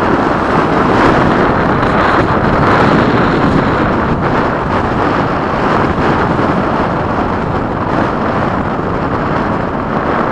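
Strong wind buffeting the microphone, a steady loud rushing noise with no clear tone.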